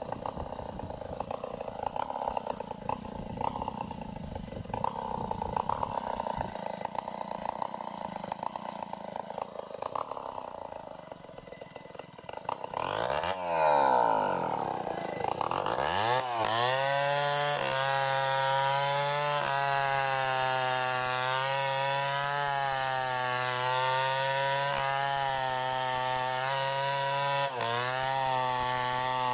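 Chainsaw cutting into a large tree trunk in a bore cut. It runs rough and uneven under load at first, its pitch sweeps up and down about halfway through, and it then holds a steady high pitch with a slight waver as it cuts.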